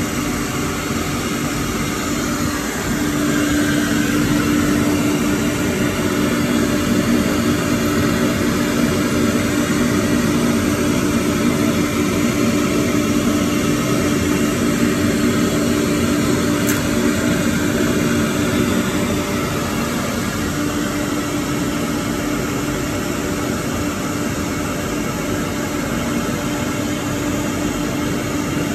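Four-head CNC router running with a steady mechanical drone, louder from about three seconds in until about two-thirds of the way through.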